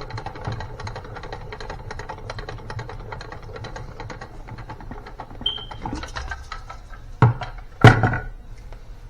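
Pump-action salad spinner whirring with rapid clicking as its basket spins dry a batch of wet spinach, then two loud knocks near the end.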